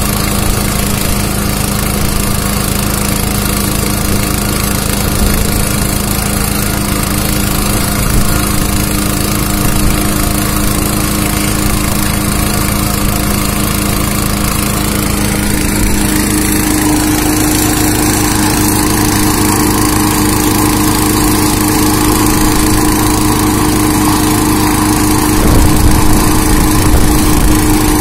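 Small engine of a track-side rail-welding unit running steadily. A little past halfway its note rises to a higher, steady speed.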